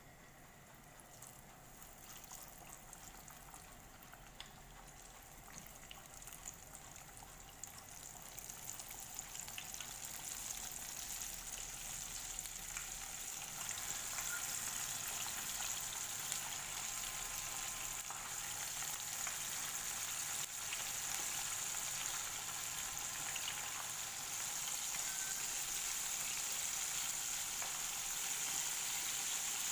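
Flour-coated chicken pieces deep-frying in hot oil, with a steady sizzle and small crackles. The sizzle grows louder over roughly the first dozen seconds, then holds steady.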